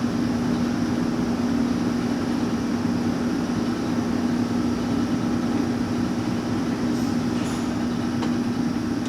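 Leblond Regal engine lathe running under power with the carriage on power feed: a steady mechanical hum with one strong, constant low tone.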